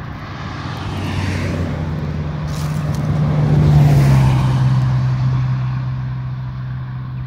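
A road vehicle driving past: its tyre and engine noise swells to its loudest about four seconds in and then fades. The engine's low hum drops slightly in pitch as it goes by.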